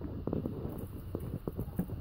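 Quick, uneven run of dull scraping thumps, several a second: a tortoiseshell cat's paws digging at packed snow.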